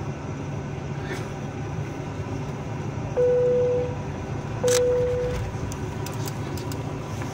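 Cabin noise of a Boeing 737-800 taxiing, a steady hum and rumble from its engines at idle. About three seconds in come two short, clear tones about a second and a half apart, with a click just before the second.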